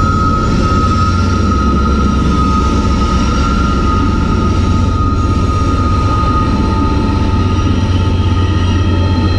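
Norfolk Southern freight train passing over a road bridge: the diesel locomotives clear it and open-top wood chip cars roll across, a steady low rumble with a steady high whine over it.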